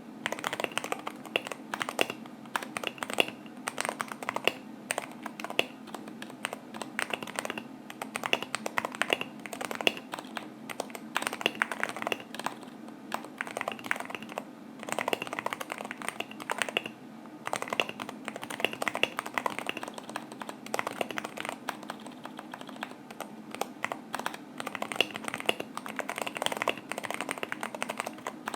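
Typing on a mechanical keyboard with tall SA-profile keycaps on stock Cherry MX Black linear switches, a dense run of key clacks broken by short pauses. The stock springs ping.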